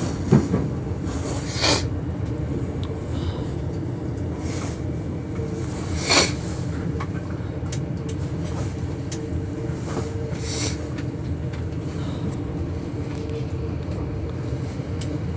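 Interior running noise of a Class 395 electric multiple unit on the move: a steady low rumble with a faint held hum. A few short clicks or knocks stand out, the clearest about six seconds in.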